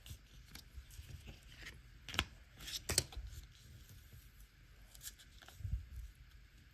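Paper being peeled by hand off a vinyl sticker: a light crackling and rustling, with two sharper crackles about two and three seconds in.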